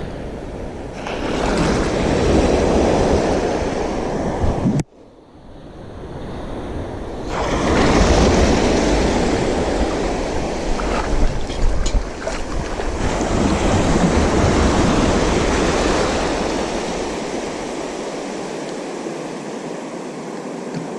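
Sea surf breaking and washing up the shore in successive swells, with wind rumbling on the microphone. The sound cuts out abruptly about five seconds in and then builds back as another wave comes in.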